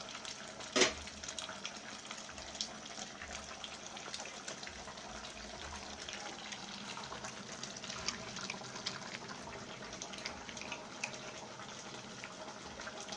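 Pot of meat cooking on a stove: a steady, fairly quiet bubbling with many small crackles, with one brief louder sound about a second in.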